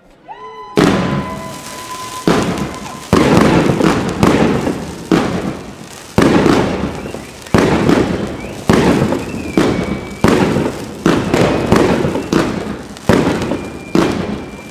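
Consumer fireworks cake (battery) firing shot after shot, about one a second from about a second in. Each shot is a sharp bang followed by a fading crackle, with a faint high whistle now and then.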